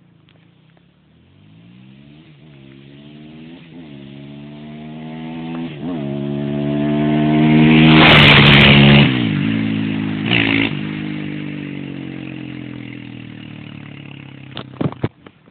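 Suzuki LT-R450 quad's 450cc single-cylinder four-stroke engine approaching under hard acceleration, its rising note breaking three times as it shifts up. It is loudest as it passes about eight seconds in, then the engine note falls and fades as it moves away, with a few sharp clicks near the end.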